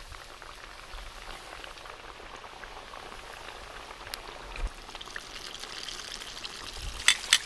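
Battered whole fish deep-frying in a skillet of hot oil: a steady sizzling, bubbling crackle. A few sharp clicks sound near the end.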